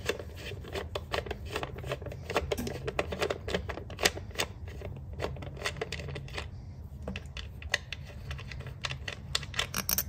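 Ratchet wrench with a 10 mm socket and extension clicking in quick, irregular runs while an ignition coil-pack hold-down bolt is unscrewed. The loudest clicks bunch together near the end.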